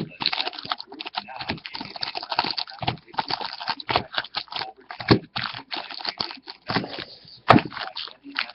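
Plastic wrapping on a Bowman Sterling football card box and packs crinkling and tearing as it is opened, in quick irregular rustles, with one sharp crack near the end.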